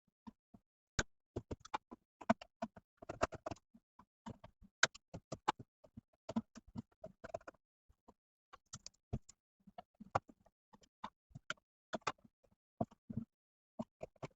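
Irregular small clicks, taps and knocks of hand work on a fire alarm panel, a few a second with short gaps between.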